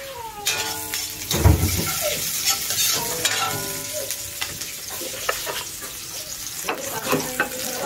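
Chopped onion, garlic and ginger sizzling as they are sautéed in hot oil in a wok, with scattered clicks of utensils and a knock about a second and a half in.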